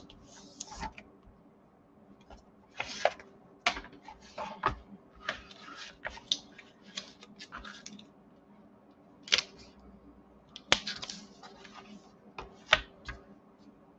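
Chipboard and paper with adhesive sheets being handled and laid down on a cutting board: irregular rustles and slides, broken by several sharp taps and clicks.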